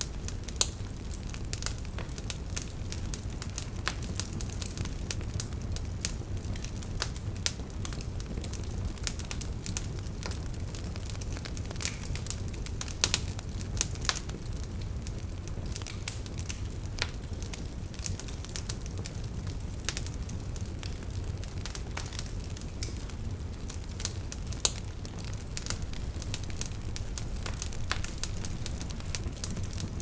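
Wood fire crackling: a steady low rumble with frequent, irregular sharp pops and snaps.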